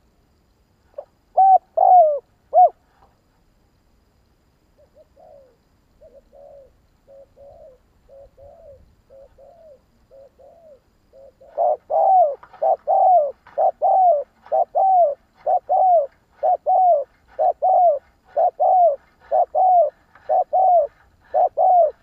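Spotted dove cooing: three loud notes about a second in, then a run of faint coos, and from about halfway a loud, regular series of coos, about one and a half a second, given as the bird bows its head. This is the decoy call used to draw wild doves in.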